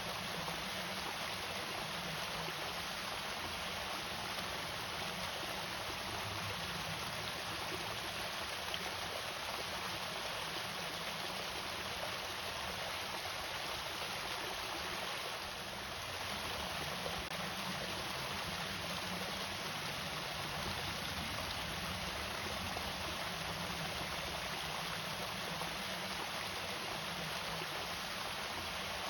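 Water from an irrigation waterfall falling steadily, a continuous even rush of water that does not change.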